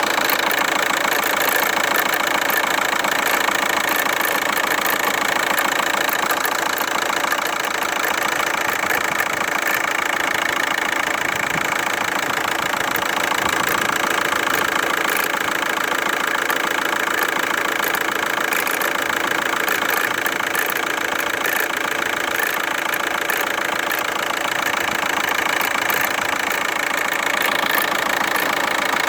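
A running engine or motor making a steady, unchanging noise with a fast ticking or rattling texture, recorded as an odd noise.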